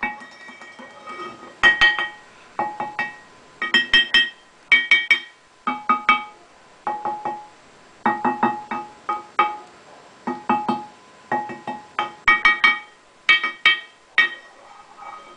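Tuned stones of a sound sculpture (a lithophone) struck in quick runs of two to five ringing, pitched notes, with short pauses between the runs.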